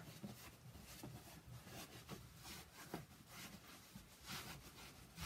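Near silence, with faint, scattered rustles of denim jeans being folded by hand.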